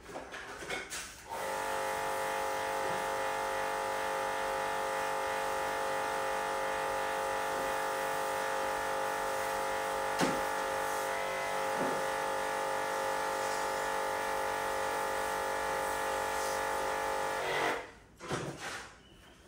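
A steady electrical or motor hum with many overtones, switched on about a second in and cutting off abruptly near the end.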